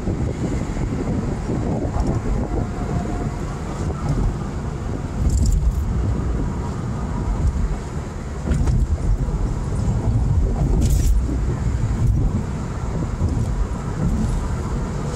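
Car driving, heard from inside the cabin: a steady low engine and road rumble with wind, swelling at times, and a few short clicks or rattles.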